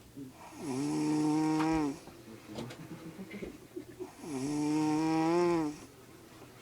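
Someone snoring with a cow-like, mooing tone: two long, drawn-out moo-like snores about three and a half seconds apart, with a rattling, crackly snore between them.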